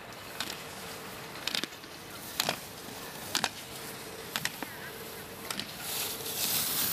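Slalom gate poles being struck as a skier runs the course on a dry ski slope: sharp clacks about once a second, over a steady faint buzz. A rushing hiss builds near the end.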